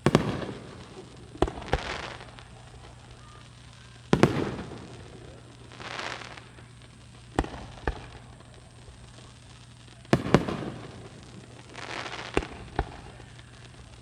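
Aerial fireworks shells bursting: three deep booms that trail off, at the start, about four seconds in and about ten seconds in, with sharper single cracks and swells of crackle between them.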